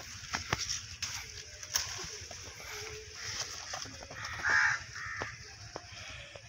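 A crow cawing a few times, the loudest call about four and a half seconds in, over scattered light clicks and rustles of handling.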